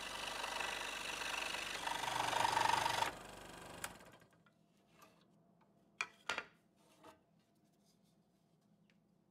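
Scroll saw running and cutting through a wooden board, louder for a moment about two seconds in, then switched off about three seconds in and winding down. After that come a few light knocks and clicks as the cut-out wooden piece is handled.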